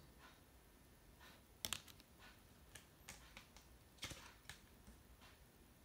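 Near silence with a few faint, scattered clicks and taps, the clearest about one and a half seconds in: hard plastic card holders being handled and set down on a stack of cards.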